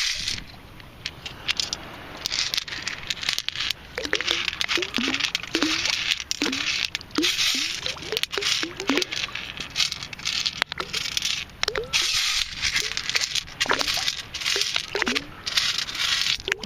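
Minelab Excalibur II metal detector giving short, bending target tones again and again as it is swept over a small target in the scoop, in two runs with a pause between. Sand and shells rattle and crackle in the sifting scoop, over a steady hiss of water.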